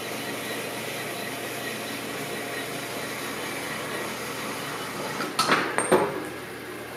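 Metal-cutting bandsaw running steadily as it cuts through the lathe spider's metal body, with a few sharp knocks about five and a half seconds in.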